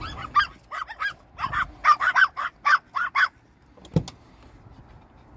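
Two small dogs yapping inside a pickup cab: a rapid run of sharp, high-pitched yaps for about three seconds, then they stop. A single knock sounds about four seconds in.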